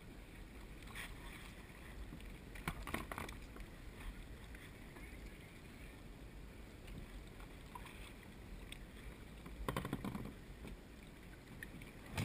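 Light water lapping and splashing around a kayak, with low wind rumble on the microphone. A few knocks about three seconds in and a quick rattling clatter near the end.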